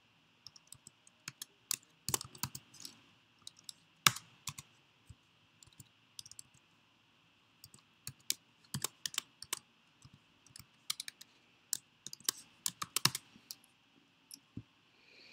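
Typing on a computer keyboard: irregular key clicks in short runs, with a pause of about a second near the middle.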